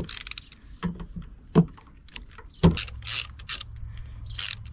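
Hand socket ratchet working bolts loose on an engine's water pump: short bursts of ratchet clicking and metal tool clinks, several times over.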